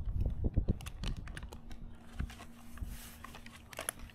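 A run of light clicks and knocks from a tree climber handling his rigging rope and gear, busiest in the first second. A faint steady hum comes in about a third of the way through.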